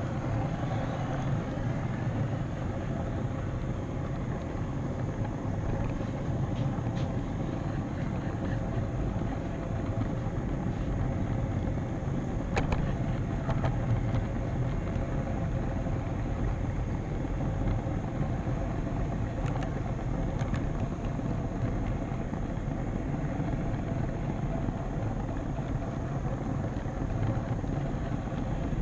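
HO scale model train rolling along the track, heard from a camera car riding on it: a steady rumble of wheels on rail with a faint motor hum. There are a few short clicks, the clearest about halfway through.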